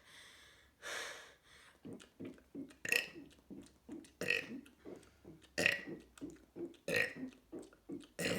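A person burping over and over, one loud burp roughly every second and a half with smaller burps in between. Before them, near the start, come two longer breathy sounds.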